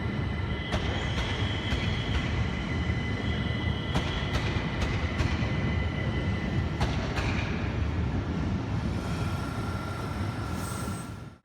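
Electric multiple-unit train moving along the track: a steady rumble with a thin high whine, and irregular sharp clicks of wheels running over rail joints.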